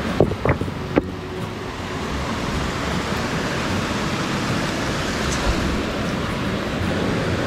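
Steady rush of a mountain headwater stream and waterfall, with three short sharp knocks in the first second.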